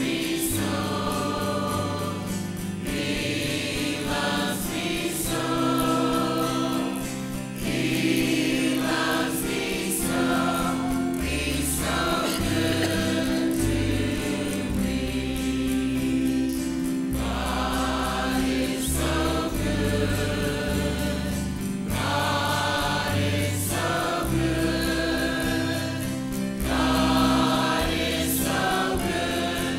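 Church choir singing a gospel song with band accompaniment, a bass line stepping between notes underneath the voices.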